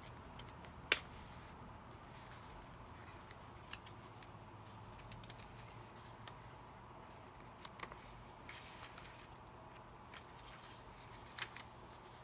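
Pages, pockets and tags of a handmade paper junk journal being handled and turned: faint paper rustles and light clicks, with one sharp tap about a second in.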